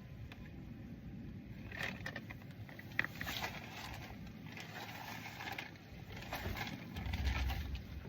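Scattered clicks and scraping from hands-on work on a car during an oil change, with one sharp click about three seconds in and a brief low rumble near the end.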